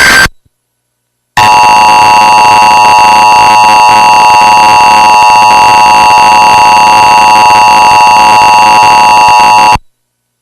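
The end of an Emergency Alert System data burst just after the start, then about a second of silence, then the EAS attention signal: a steady, overdriven multi-tone alarm held at full level for about eight seconds before cutting off suddenly.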